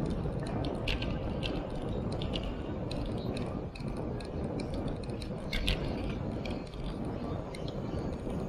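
Bicycle ride on asphalt heard from a bike-mounted action camera: a steady rumble of wind and tyre noise, with frequent light, irregular clicks and rattles from the bike.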